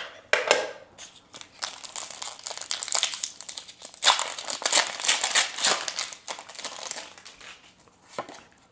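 Foil booster pack wrapper crinkling in irregular bursts as it is handled and torn open by hand, dying down near the end.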